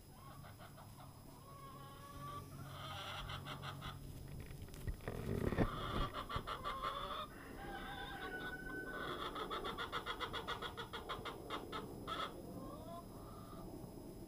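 Silkie rooster crowing several times close by, harsh and rapidly pulsed, with a fainter rooster's crowing heard between its calls.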